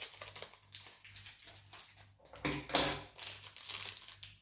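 Small plastic blind bag being cut and pulled open by hand: a run of small crinkles and clicks, louder about two and a half seconds in.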